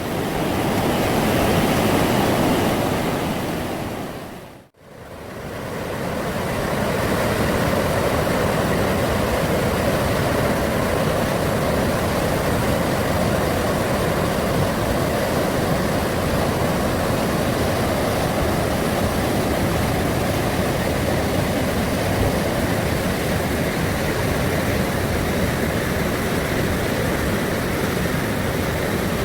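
Mountain stream rushing over rocks, a steady loud rush of water. It fades out briefly about five seconds in and comes back.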